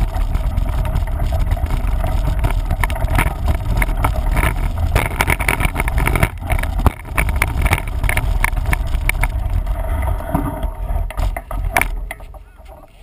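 Wind buffeting the microphone over the clatter and rattle of a mountain bike riding a rough trail, with many sharp knocks; it dies away near the end.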